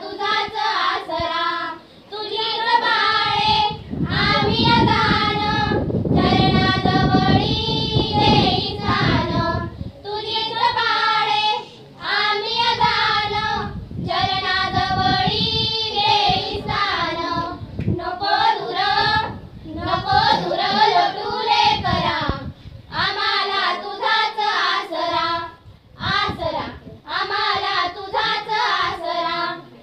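A small group of schoolgirls singing a song together without accompaniment, in phrases of a few seconds with short breaths between them.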